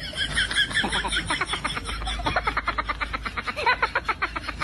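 A man laughing hard in one long, rapid run of quick, even "ha-ha-ha" pulses.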